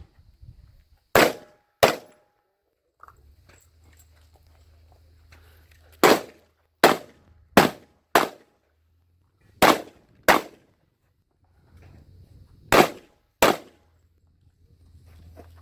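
Shotgun shots fired in quick pairs, ten in all, the shots in each pair under a second apart with gaps of one to two seconds between pairs: a shooter engaging aerial clay targets. A faint low rumble sits between the shots.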